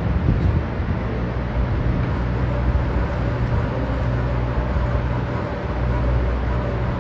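Electric stand mixer running steadily, its motor giving a constant hum as it turns in the steel bowl.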